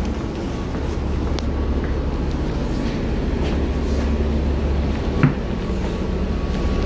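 Steady low rumble of a vehicle, with one sharp knock about five seconds in.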